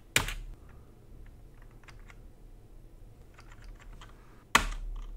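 Typing on a ZX Spectrum+ keyboard: a loud key clack just after the start and another about four and a half seconds in, with faint light key taps between them.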